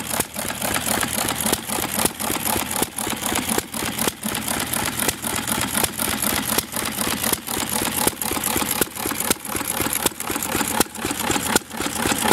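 Antique stationary engines running steadily: a fast, slightly uneven chain of exhaust beats over a low hum.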